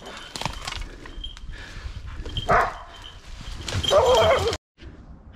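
Hunting dogs barking and baying in thick brush: single loud barks, then a long wavering bay about four seconds in, typical of hounds holding a wild boar at bay. The sound cuts off abruptly just after.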